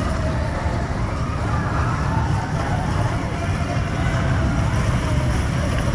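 Steel-track family roller coaster train running along its track: a steady rumble with faint wavering whines over it.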